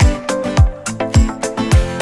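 Background music with a steady beat: a deep kick drum that drops in pitch about every 0.6 seconds, with crisp percussion clicks and melodic notes over it.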